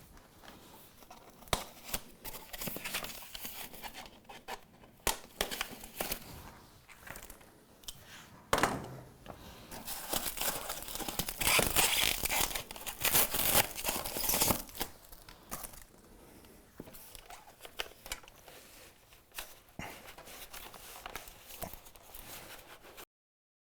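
Packaging being stripped off a new bicycle: wrapping crinkling and tearing in irregular handfuls, with scattered clicks and knocks, loudest and densest around the middle. The sound cuts off abruptly near the end.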